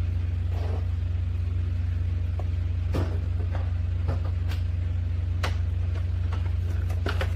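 Scattered sharp plastic clicks and knocks from handling an RC boat while a battery is fitted, with a cluster near the end, over a steady low hum.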